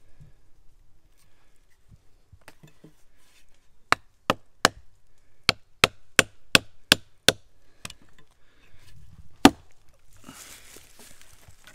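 Large bushcraft knife blade chopping into a log: about ten sharp blows starting about four seconds in, the last one the loudest, followed by a brief rustle near the end.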